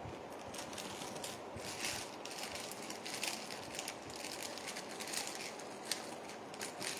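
Faint, irregular rustling and handling noises over a steady background hiss.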